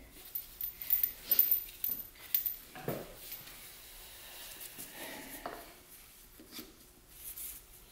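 Scattered light clicks and clinks of metal tools and engine parts being handled, busiest in the first three seconds, as a piston on its connecting rod is set into a cylinder bore of a bare engine block.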